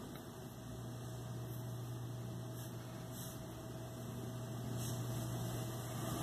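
A steady low hum under faint background noise, growing a little louder toward the end.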